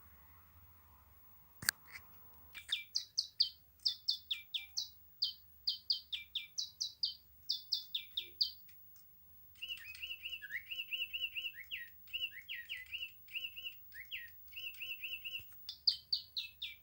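Bird chirping in quick series of short, sharply falling notes, then a fast run of shorter, lower notes, with more high falling notes near the end. A single sharp click sounds shortly before the birdsong begins.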